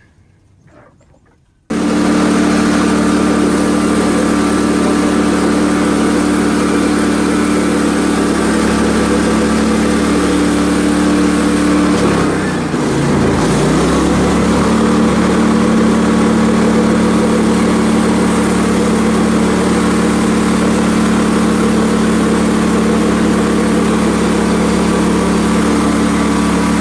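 Portable bandsaw sawmill's engine running steadily while slabbing a large burl log; it comes in suddenly near the start. About halfway through, its pitch dips for a moment and then recovers.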